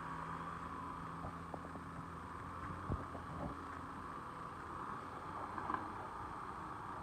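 Distant demolition machinery running with a steady hum, a low drone that fades about two seconds in, and a single knock about three seconds in followed by a few faint clicks near six seconds.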